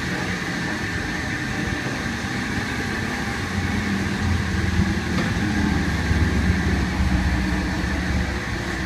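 Car wash tunnel dryer blowers, centrifugal fans with electric motors, running with a steady rushing noise. A low hum grows louder about four seconds in.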